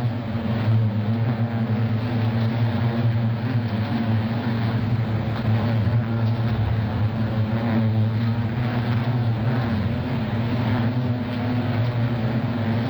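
Beehive colony buzzing: a dense, steady hum of many bees with a low drone underneath.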